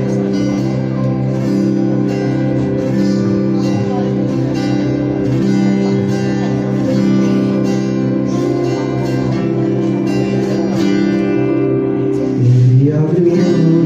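Instrumental intro of a worship song: held chords with guitar, growing a little louder with a new low note near the end.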